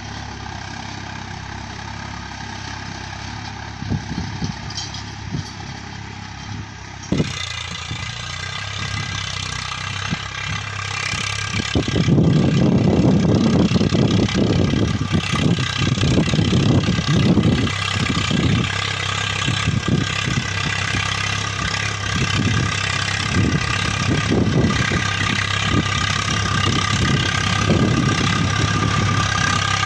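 Swaraj 855 FE tractor's three-cylinder diesel engine running under load while pulling a tine cultivator through the soil. After a cut about seven seconds in, it grows much louder from about twelve seconds as the tractor comes close.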